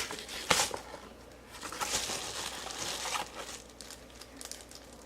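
A package being opened by hand: crinkling and tearing of the packaging, with a sharp snap about half a second in and the loudest rustling between about one and a half and three seconds, fading to a few faint ticks.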